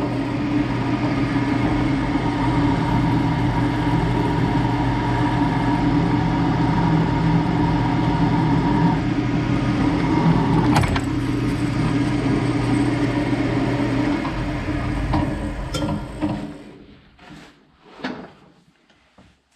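Drill press running steadily as a 1/4 inch twist bit cuts through a chrome-plated steel axle pin, with a short nasty crunch late on as the bit breaks through the bottom of the hole. The motor then shuts off and spins down about three-quarters of the way in, leaving a few light knocks.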